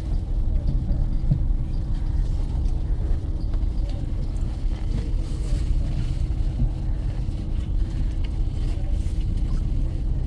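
Cabin noise on the upper deck of a moving double-decker bus: a steady low rumble of engine and road noise with a constant hum running through it.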